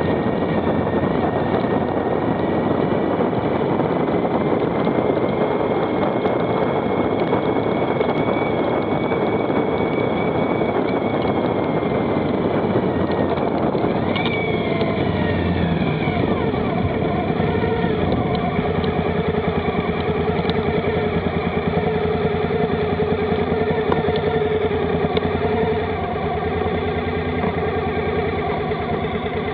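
Motorcycle running at speed with heavy wind rush on the microphone. About halfway through, the engine note falls away as the bike slows, and it carries on at lower revs with less wind.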